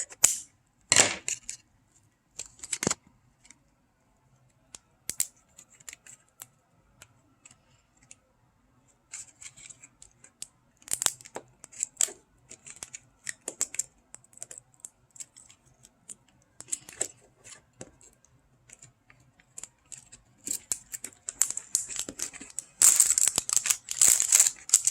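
Toy packaging being handled and opened by hand: scattered clicks and crinkles, then a loud spell of tearing near the end.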